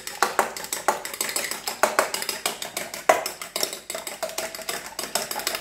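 A metal fork beating eggs in a stainless steel bowl: quick, uneven clinks of fork against the bowl's side, some ringing briefly.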